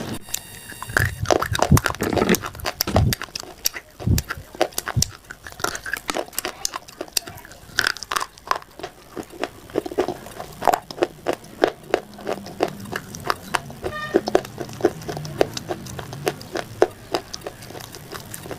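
A person biting and chewing something dry and crunchy, a run of many sharp, irregular crunches with a few heavier bites in the first few seconds.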